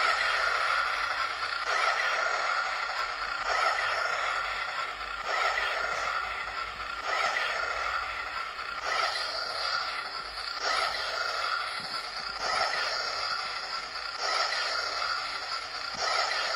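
Toy lightsaber's electronic sound effect playing through the handle's small speaker: a steady buzzing hum that swells rhythmically about every two seconds.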